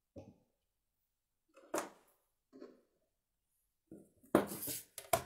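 Short knocks and rustles from a watercolour sheet on its board being handled and moved. The loudest cluster comes about four and a half seconds in.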